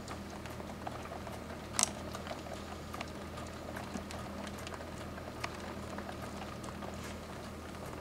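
Rain pattering: irregular drops tapping, one louder tap a little under two seconds in, over a steady low hum.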